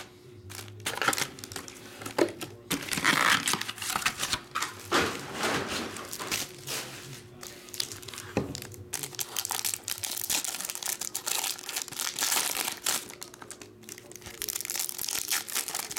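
Foil trading-card pack wrappers crinkling and tearing as Bowman Chrome baseball card packs are ripped open one after another, in irregular rustling bursts.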